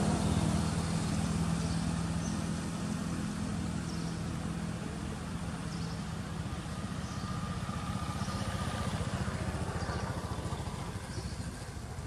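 Motor vehicle engine running steadily in the background, fading slowly, with faint short high chirps every second or so.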